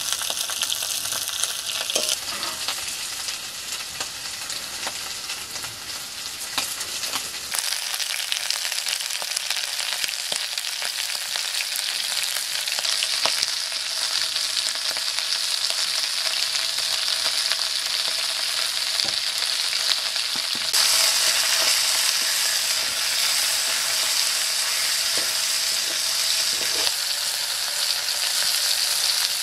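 Chunks of buffalo meat and garlic frying in hot oil in an iron wok: a steady sizzle with a few light clicks. The sizzle gets louder and brighter about two-thirds of the way through.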